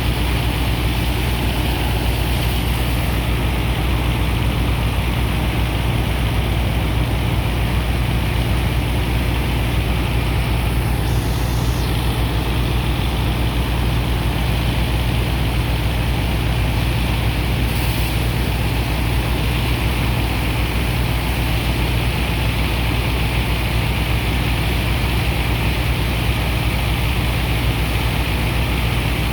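Sand dredger's heavy engines and pump running steadily: a constant low drone under a continuous rushing noise.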